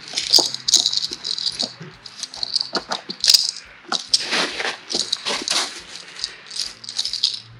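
Steel snow chains (Master Power 9060) rattling and clinking as their links are pulled around a camper van's front tyre and hooked together, in an irregular string of jingles.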